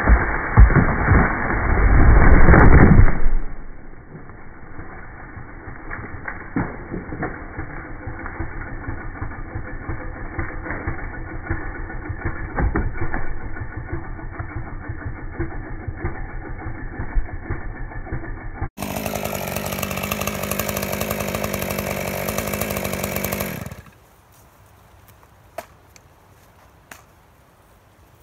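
A felled tree cracking and crashing down in the first three seconds as it twists and snaps the tongue off inside its hinge cut, with a chainsaw idling underneath. About two-thirds of the way in, the chainsaw idle comes through clearer and louder for about five seconds, then cuts off, leaving quiet with a few faint clicks.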